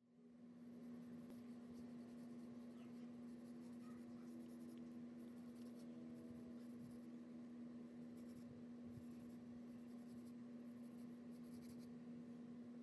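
Faint scratching of a mechanical pencil's lead across paper in short, repeated sketching strokes, over a steady low hum.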